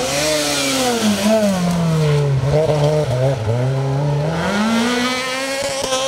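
Renault Clio rally car taking a hairpin: the engine revs fall as it slows for the bend, stay low through the turn, then rise again as it accelerates out.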